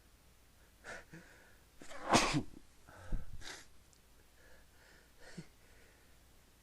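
A person sneezing: one loud sneeze about two seconds in, followed a second later by a second, weaker burst, with short quieter breaths before and after.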